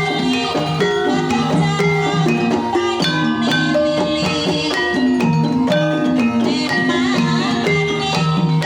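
Banyumasan gamelan music for tayub: mallet-struck tuned instruments play a steady, repeating melody over drumming.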